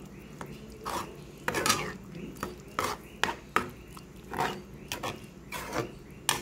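A spoon scraping and knocking against the pot while stirring a thick tomato and dried-shrimp sambal, in repeated short strokes about two a second.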